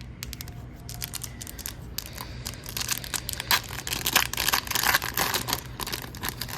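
A foil trading-card pack wrapper being torn open and crinkled: scattered crackles that thicken into a dense run of crinkling about halfway through.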